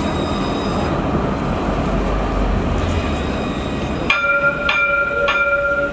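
Luas tram running along the street with a steady rumble, then from about four seconds in its warning gong strikes three times, about half a second apart, each strike ringing on.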